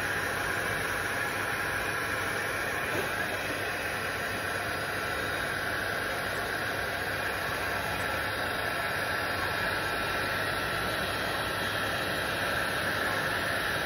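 Workzone electric heat gun running steadily, its fan blowing a constant hiss with a faint high whine on top.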